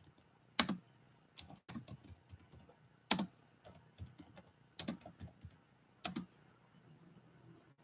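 Typing on a computer keyboard: irregular keystroke clicks in short runs, stopping about six seconds in.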